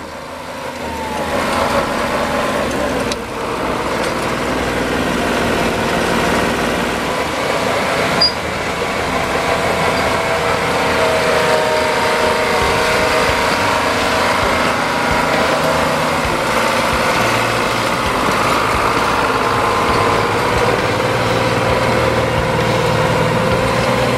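The four-cylinder GM diesel engine of a 1945 Allis-Chalmers HD-7 crawler tractor running steadily as the tractor drives and turns, its note shifting slightly now and then. A single sharp knock about eight seconds in.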